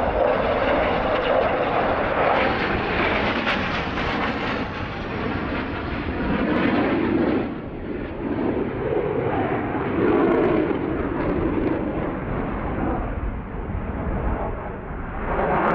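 Jet noise from KAI T-50B aerobatic jets flying past overhead, each powered by a single turbofan. It is a steady rushing roar that rises and falls in level as the jets pass.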